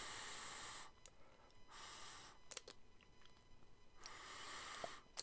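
A man sniffing at a small open e-liquid bottle held to his nose: three faint sniffs, the first and last about a second long and the middle one shorter, with a couple of small clicks between.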